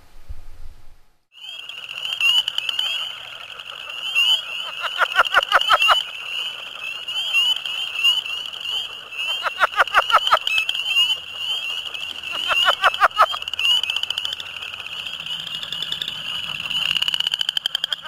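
Leopard frog calling: three bursts of rapid clucking pulses a few seconds apart, starting about a second in. Under them runs a steady, high-pitched trilling chorus of spring peepers and chorus frogs.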